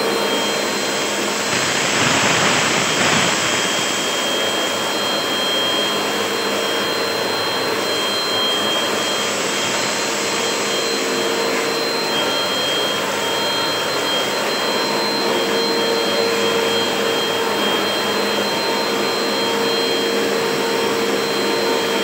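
AGARO Royal bagless upright vacuum cleaner running on a stone floor, its motor giving a steady whine with a few constant high tones. About two seconds in, a brief louder rush as the brush roll and suction take up the scattered tea leaves, mustard seeds and chilli powder.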